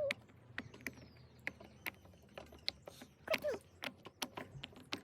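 Irregular light clicks and taps of plastic fidget toys being handled, a few a second, with a brief vocal sound about three seconds in.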